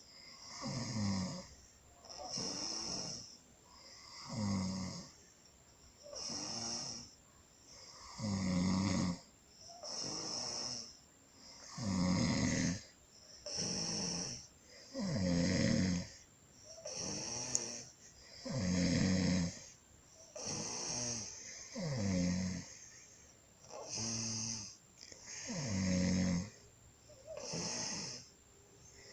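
A person snoring in sleep, a rasping snore coming regularly about every two seconds with a drop in pitch on each one.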